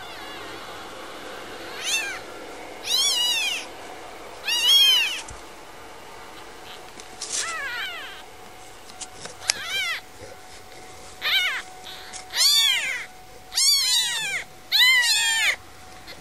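Newborn kittens, four days old, crying with thin, high-pitched mews, each rising and then falling in pitch. There are about ten cries, spaced out at first, then closer together and louder in the second half.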